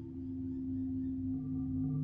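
Ambient background music: a drone of several steady, held low tones, with a higher tone joining about a second and a half in.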